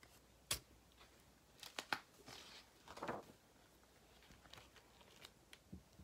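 Quiet handling of a large hardcover picture book: a sharp tap about half a second in, then a few light taps and the papery swish of a big page being turned, followed by faint ticks.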